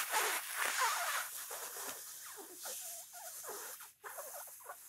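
A long, slow inhale through a rolled tongue (Shitali yoga breathing): an airy hiss with faint wet clicks that gradually fades, breaking off briefly about four seconds in.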